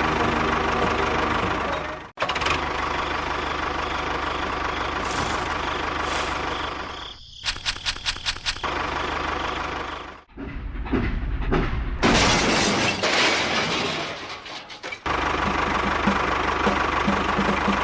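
Engine-like machine running, heard in a string of short edited pieces with abrupt cuts between them, including a stretch of rapid regular pulses.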